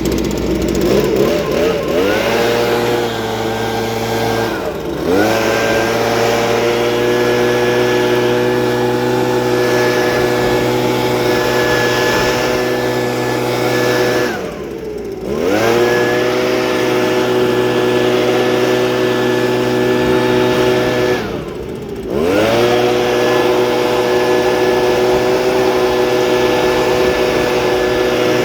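Small gas engine, most likely a leaf blower, running at full throttle with a steady high whine. Three times it briefly drops toward idle and revs back up, as if blowing chaff off a combine grain header.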